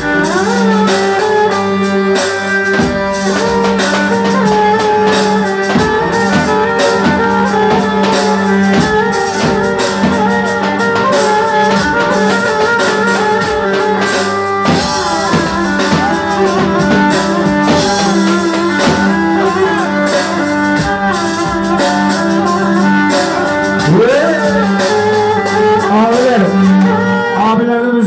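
Live dance music with a davul bass drum beating steadily under a bending, wavering melody held over a steady low drone.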